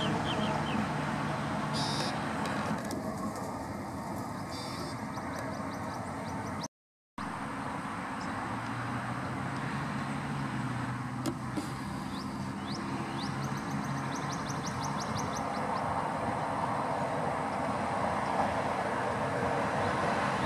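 Steady low rumble of a vehicle engine, with faint bird chirps and a quick trill of high repeated notes over it. The sound cuts out completely for a moment about seven seconds in.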